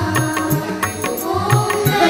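Devotional music: a chanted vocal line over a steady drum beat.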